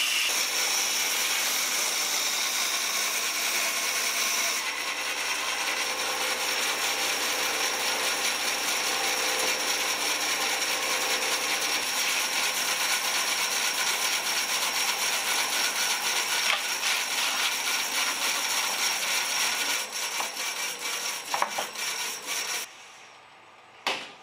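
Oliver 35 bandsaw cutting through a wooden bat blank: a steady sawing rasp with a high whine from the running blade. Near the end the cutting breaks into short, choppy bursts and then stops, followed by one sharp click.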